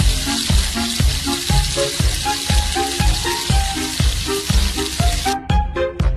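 Food sizzling in a frying pan over background music with a steady beat; the sizzling cuts off suddenly about five seconds in.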